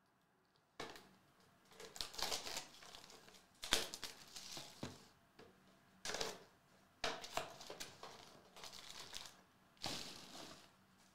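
Cardboard trading-card hobby box being torn open and its wrapped packs pulled out: irregular crackling, crinkling and tearing bursts, starting sharply about a second in.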